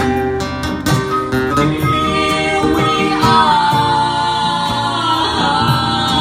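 Live acoustic music: guitar strummed in chords about the first two seconds, then a slow, held melody line with gentle bends carries over steady sustained tones.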